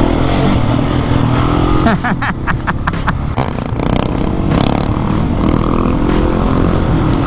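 Husqvarna 701's single-cylinder engine running under way, with steady road and wind noise over the rider's microphone. A quick run of sharp clicks comes about two to three seconds in.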